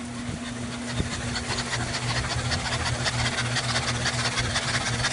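Rebuilt Ford 351 Cleveland V8 turning over on an engine test machine as it is brought up to about 250 RPM: a steady low hum with fast, even valvetrain ticking that grows louder and quicker about two seconds in.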